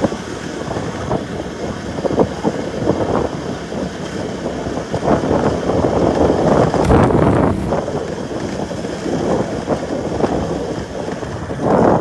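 Wind buffeting the microphone in uneven gusts, a rumbling rush that swells and eases.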